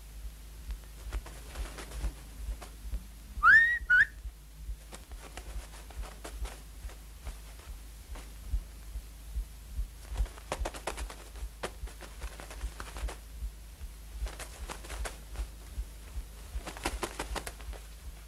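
A short whistle of two quick rising notes about three and a half seconds in. Later a feather duster brushes and taps over the furniture in bursts of quick strokes.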